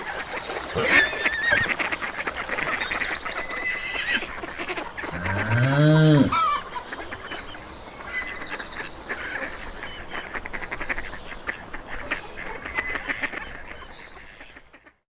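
Farmyard ambience: geese and ducks honking and quacking among chirping small birds, with one long, low animal call that rises and falls about five seconds in. The sound fades out just before the end.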